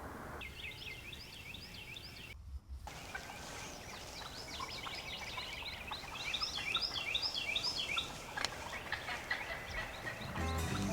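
Wild turkey gobbler (Osceola) gobbling, rapid rattling series repeated several times, with a brief break in the audio about two and a half seconds in.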